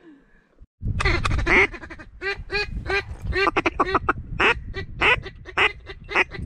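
A rapid run of duck quacks, several a second, beginning about a second in, over a low rumble.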